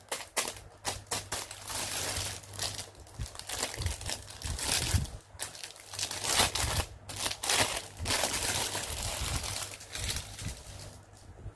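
A thin clear plastic bag crinkling and rustling in irregular bursts as a doll is worked out of it by hand.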